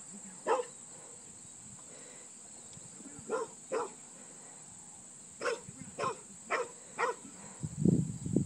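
Australian Shepherd stockdog barking while working cattle: about seven short, single barks, mostly in pairs about half a second apart. A louder low noise comes in near the end.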